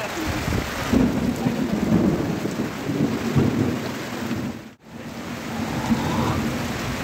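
Heavy rain pouring onto a street and tin roofs, with low rumbling thunder. The sound drops out for an instant a little under five seconds in.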